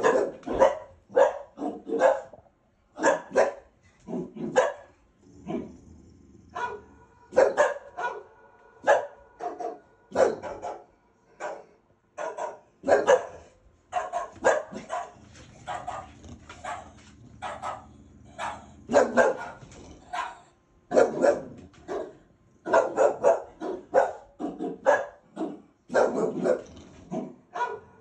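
Dogs barking over and over, in short sharp barks about one to two a second with brief gaps, from the dog-barking video on the TV and the bulldogs answering it. A low steady hum runs underneath from about five to twenty seconds in.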